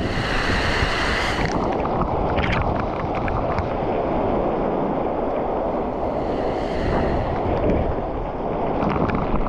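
Steady, loud rushing noise of water and wind, with scattered small clicks throughout.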